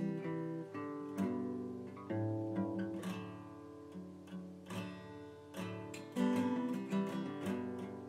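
Background music on acoustic guitar: a quick run of plucked and strummed notes.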